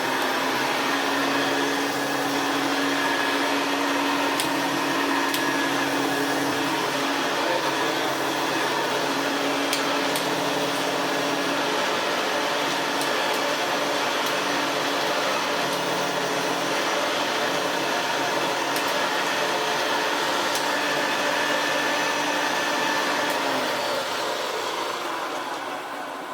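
Hoover Senior 652a upright vacuum cleaner running steadily, a motor hum with a rushing hiss, starting to run down near the end. It has been overhauled: hair and dust are cleared from the fan and the seized fan bearing greased, and it doesn't sound so bad now.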